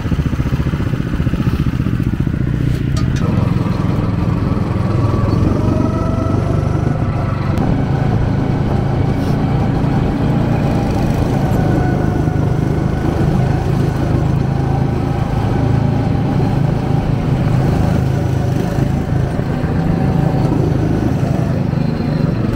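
Rental go-karts' small gasoline engines running on the track, the driver's own kart loudest, its pitch rising and falling with the throttle.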